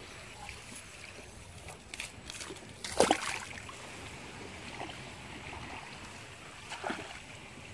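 Water splashing in shallow water among lily pads: a few small splashes about two seconds in, a sharp louder splash about three seconds in, and another near the end, over steady background noise.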